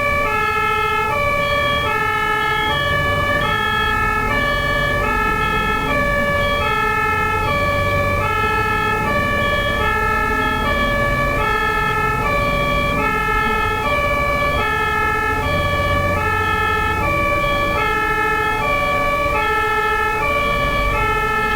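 German ambulance's two-tone siren (Martinshorn) sounding continuously, stepping back and forth between a high and a low note, each held a little over half a second, over the low rumble of road traffic.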